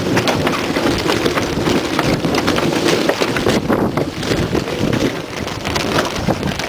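Wind buffeting the microphone on a sailboat under way, over the steady rush and splash of water, with many short crackles.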